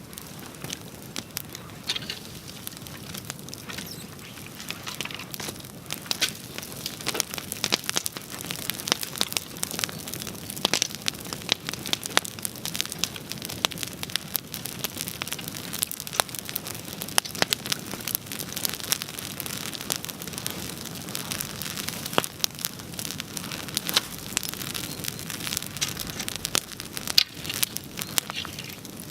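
Wood bonfire burning: a steady hiss under dense, irregular crackling, with one sharp crack near the end louder than the rest.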